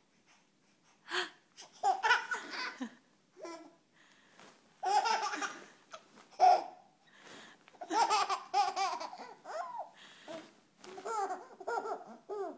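A baby laughing in repeated short bursts, with pauses between them.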